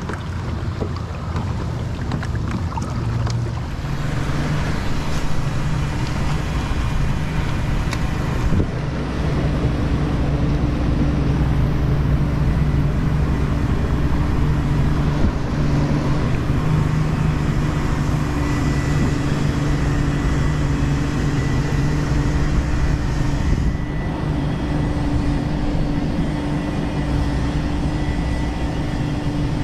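A steady, low engine drone over wind noise on the microphone.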